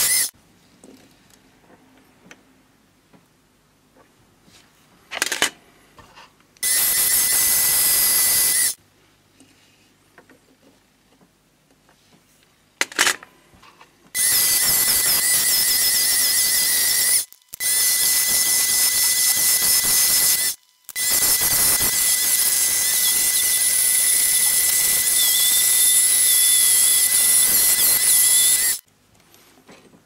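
A hand file shaping a small metal part spinning in a drill press chuck, making high, hissing scraping with a steady squealing tone. It comes in four long stretches with near-quiet gaps between; the last runs about eight seconds.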